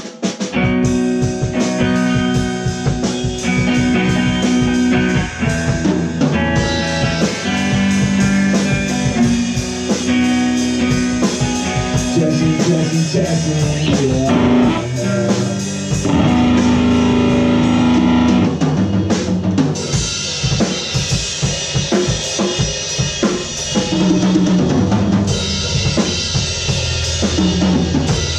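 Rock band playing together live: drum kit, two electric guitars and electric bass.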